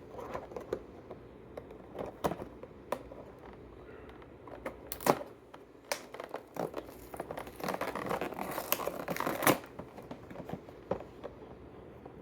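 Hot Wheels multipack packaging being opened by hand: scattered clicks and snaps, then a denser stretch of crinkling and tearing from about seven to nine and a half seconds in.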